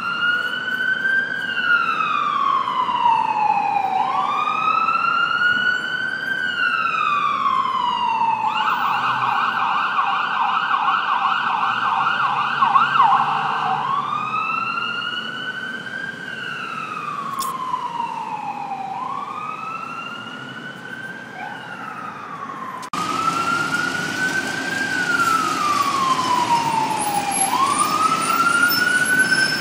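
Electronic emergency-vehicle siren in wail mode, slowly rising and falling about every four seconds. For about five seconds in the middle it switches to a fast yelp, then returns to the slow wail. Near the end the background noise jumps abruptly louder under the wail.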